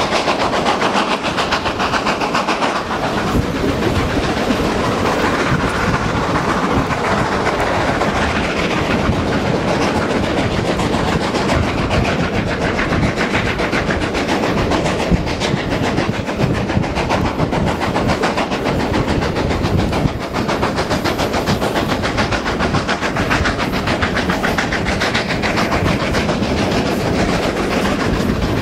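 A double-headed pair of GWR Castle class 4-6-0 steam locomotives working hard up a steep gradient, heard from an open carriage window, with the carriage wheels running on the rails. The sound is loud and steady throughout.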